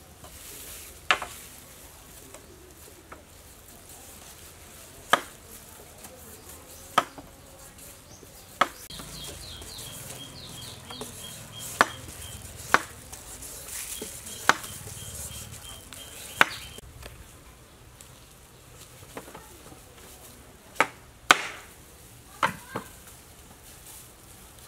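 A hand peeler stripping the skin off a green papaya: a crisp snap with each stroke, about a dozen strokes spaced one to three seconds apart.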